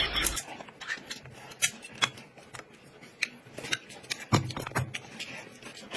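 Chopsticks clicking and scraping against a small tin of chili sauce and against the dishes, in scattered light taps, with one heavier knock a little past the middle.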